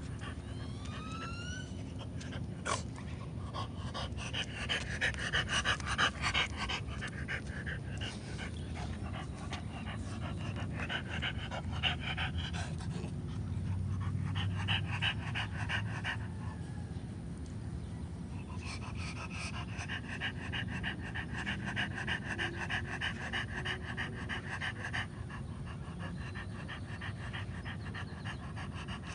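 French bulldog panting rapidly and rhythmically, in bouts of a few seconds at a time.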